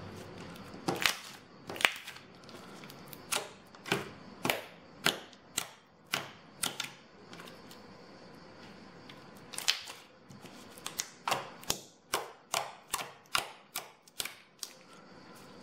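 Clear slime mixed with metallic pigment powder being kneaded and stretched by hand, its trapped air pockets popping in a run of sharp, irregular clicks, with a pause of a couple of seconds midway.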